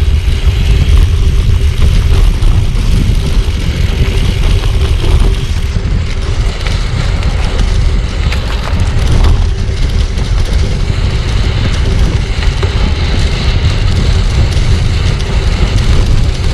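Wind buffeting a bike-mounted action camera's microphone while riding a gravel bike on a sand track, a loud, fluttering rumble over tyre and rattle noise, with a faint steady hum throughout.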